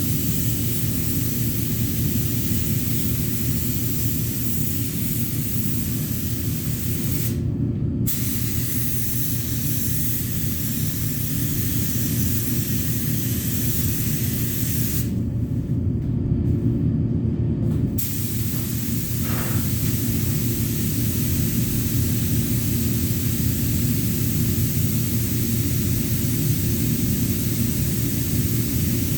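Primer being sprayed: a continuous hiss of spraying that stops briefly about seven seconds in and again for about three seconds around the middle. A steady low hum runs underneath.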